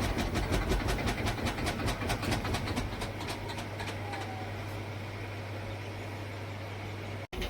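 Cecotec Bolero Dresscode 7410 front-loading washing machine running: a fast, even clattering for the first few seconds, then a steady low hum that cuts off suddenly near the end.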